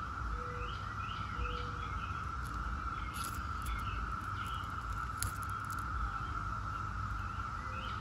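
Brood X periodical cicadas singing in chorus, a steady unbroken drone, with birds chirping over it now and then.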